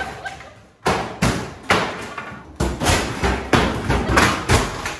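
Built-in cupboards being demolished: a series of heavy knocking blows, about two a second, starting about a second in.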